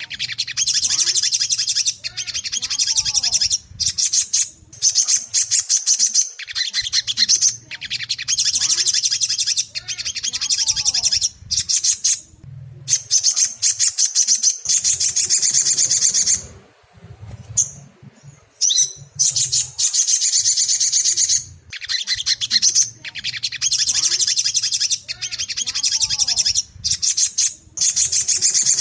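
Sogon songbird singing a rapid, high, chattering song in long phrases broken by brief pauses. A low steady hum runs underneath.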